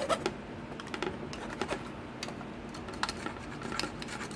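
Small hacksaw slowly cutting into a plastic model kit's roll cage, giving light, irregular clicks and ticks as the blade catches and the brittle plastic part is handled.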